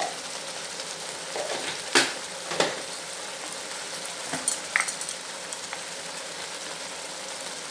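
Onion paste frying in oil in a kadai, with red chili powder just added: a steady sizzle broken by a few sharp clicks and pops.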